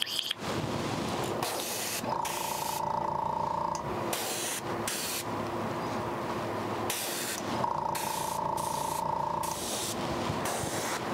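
Airbrush spraying thinned acrylic paint: a hiss that starts and stops in repeated bursts as the trigger is pressed and released, over a steady background hum.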